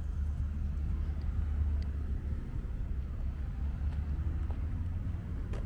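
Outdoor park ambience: a steady low rumble of wind buffeting the microphone over road traffic, with a single sharp click near the end.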